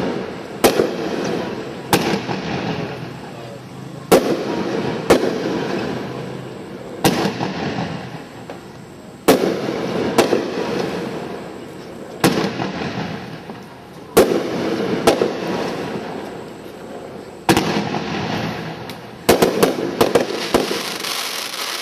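Winda 'Shoot the Moon' nine-shot consumer firework cake firing shells one after another, about every two seconds. Each shot is a sharp launch or burst bang, and its noise trails off over a second or two before the next.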